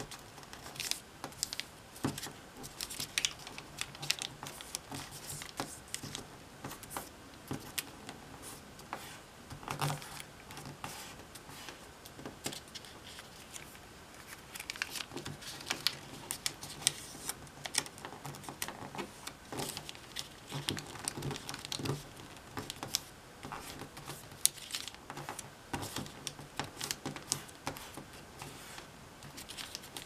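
A 15 cm square of origami paper being folded and creased by hand, with irregular crinkles, rustles and small ticks as the paper is bent and pressed flat.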